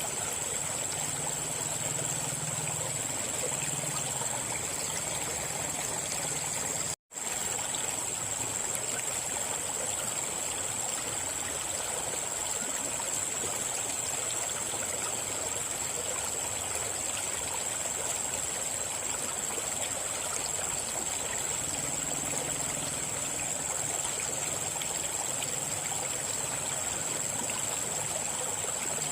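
River water flowing steadily over rocks, a constant rushing and trickling. The sound cuts out for an instant about seven seconds in.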